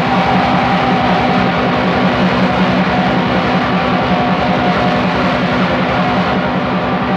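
Raw black metal recording: heavily distorted guitars in a dense, lo-fi wall of sound with steady held notes over a fast, unbroken rhythm.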